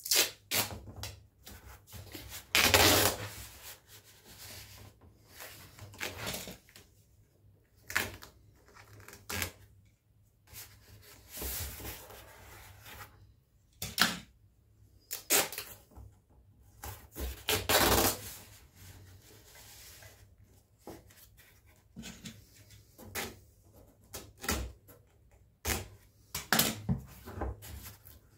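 Duct tape being pulled off the roll and torn in a string of short ripping sounds, the longest and loudest about three seconds in, with crackling and tapping as strips are pressed onto cardboard.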